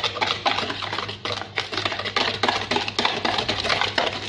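Wire whisk beating liquid cake batter in a plastic bowl: quick, regular clicking and tapping strokes of the metal wires against the bowl, several a second.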